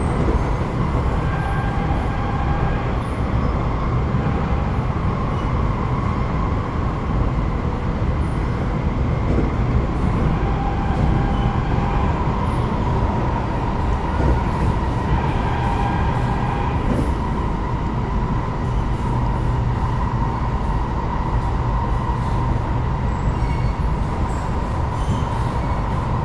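SMRT C751B metro train running between stations, heard from inside the car: a steady rumble of wheels on rail, with a steady whine that grows stronger over the second half.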